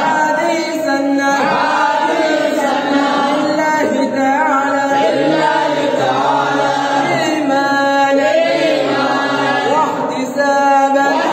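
A group of men chanting an Islamic devotional chant together, one continuous melodic line that rises and falls without a break.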